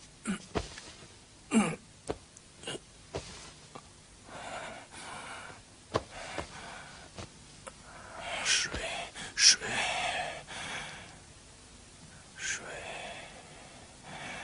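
A wounded man groaning and gasping in pain, his breathing ragged. There are short sharp sounds in the first few seconds, then longer drawn-out moans, the loudest in the middle.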